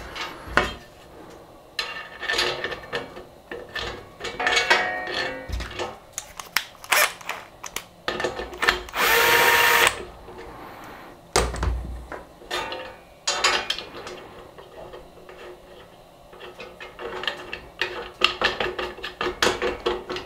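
Cordless drill-driver runs once for about a second, driving a screw through the aluminium plate into an aluminium extrusion. Around it are clinks and clicks of metal parts and screws being handled, with a low thud just after the drill stops.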